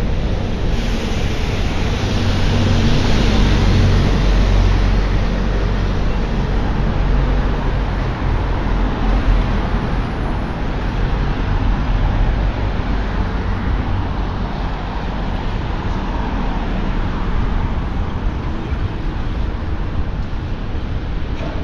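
Road traffic on a wet street: a double-decker bus passes close by, its low engine rumble and tyre hiss swelling to a peak about three to four seconds in, followed by steady traffic noise and the hiss of tyres on the wet road.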